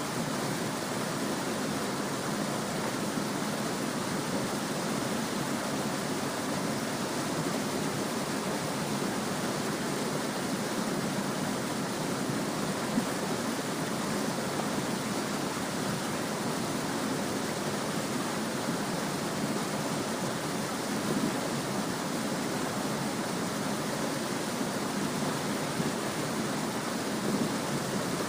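Small stream babbling, a steady even rush of flowing water.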